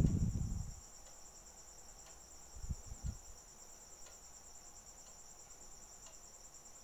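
Crickets trilling steadily, a continuous high-pitched shrill, with a few dull low bumps at the start and about three seconds in.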